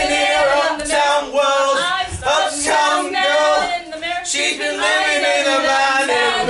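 Voices singing together, with a choir-like sound of several voices at once.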